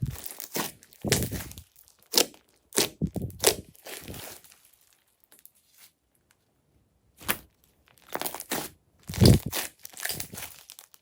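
Glossy slime being squeezed and pressed by hand, giving irregular bursts of sticky crackling and popping, with a pause of a couple of seconds in the middle.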